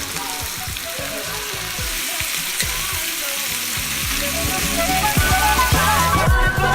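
Chicken pieces frying in butter in a hot cast iron skillet, a steady sizzling hiss. Background music comes in and grows louder in the second half, and the sizzle cuts off near the end.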